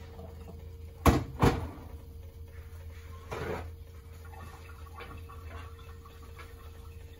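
Two sharp knocks in quick succession about a second in, then a softer rustle a couple of seconds later, over a steady low hum with a faint constant tone.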